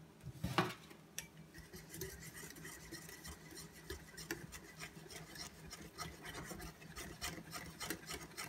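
Wire balloon whisk beating flour into an egg-and-oil batter in a ceramic bowl, a faint, quick scraping of the wires against the bowl. A single louder knock comes about half a second in.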